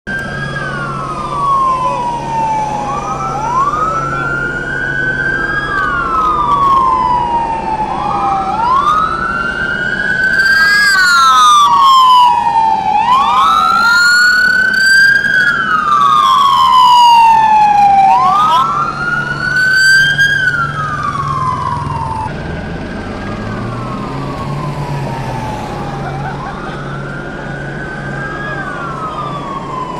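Several police car sirens wailing, each slowly rising and falling in pitch over about five seconds and overlapping out of step. They are loudest in the middle and drop quieter about two-thirds of the way in.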